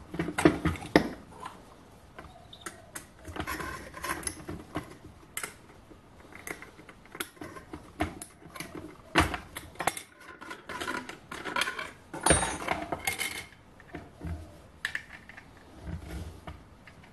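Intermittent clicks and clinks of small metal parts as a flange nut and thin cutting disc are unscrewed and taken off a mandrel arbor held in a drill chuck, with a couple of louder knocks.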